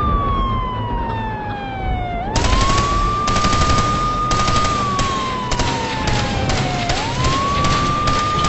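Emergency-vehicle siren wailing: a single tone that holds, slides slowly down and sweeps quickly back up, about every four and a half seconds. About two seconds in, a dense crackle of sharp bangs cuts in and runs alongside it.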